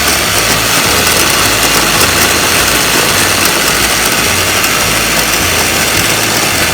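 Electric kitchen grinder running at full speed, chopping green chilies, tomato and green onions; a loud, steady whirring.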